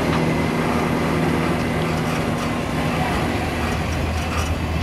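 Trackless road train on the move, heard from one of its open carriages: a steady low engine drone with rolling and wind noise.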